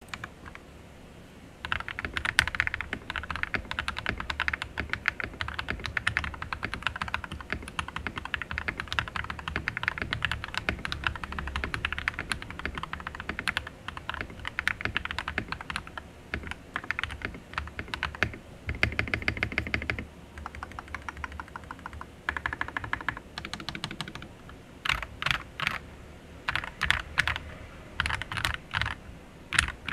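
Typing on an AWS68 mechanical keyboard with Krytox-lubed Akko CS Radiant Red linear switches, PBT Cherry profile keycaps and a foam-dampened plastic case. After a short quiet start, fast continuous keystrokes run for most of the stretch. They thin out, then turn into slower, separate key presses in the last few seconds.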